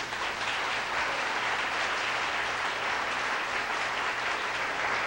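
Theatre audience applauding steadily, many hands clapping together at the end of a musical number.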